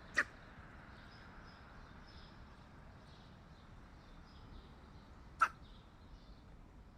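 Hooded crow sneezing twice: two short, sharp sneezes about five seconds apart.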